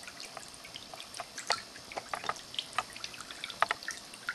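Handmade stoneware cat drinking fountain running: water spilling from its shell tower into the glazed bowl, with many irregular drips and plinks over a soft steady trickle.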